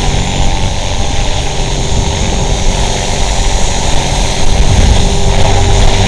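Align T-Rex 450 electric RC helicopter hovering: a steady whine from the brushless motor and two-bladed main rotor. Gusting wind rumbles on the microphone.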